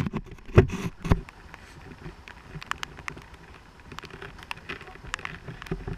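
A few loud knocks on a helmet-mounted action camera in its first second as it is bumped, then rain tapping on the camera housing in scattered small ticks.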